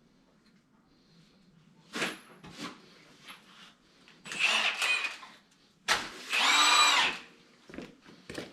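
A handheld power tool run briefly twice, each burst about a second long, the second a steady whine that speeds up and slows down at its ends. Two sharp knocks come before the first burst.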